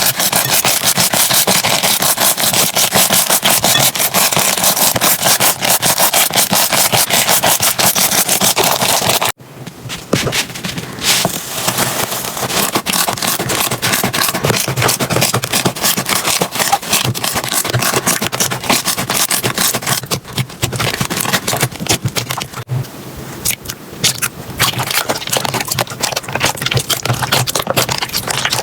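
Slime being squeezed and worked by hand, giving a dense stream of fast crackling and popping clicks. The sound cuts off sharply about nine seconds in and resumes with a sparser, slightly softer crackle.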